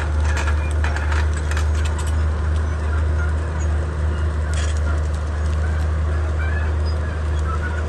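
Komatsu D31P bulldozer's diesel engine running steadily, with clanks and squeaks from the working machine over it, a few clicks in the first two seconds and another at about four and a half seconds.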